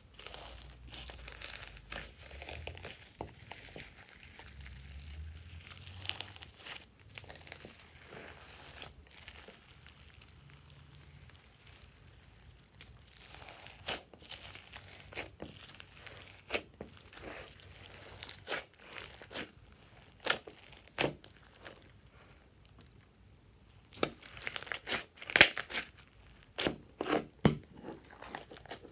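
Glossy slime with foam beads and sequins being mixed and pressed by hand: sticky crackling and sharp clicking pops. It is soft at first, with louder, denser pops through the second half.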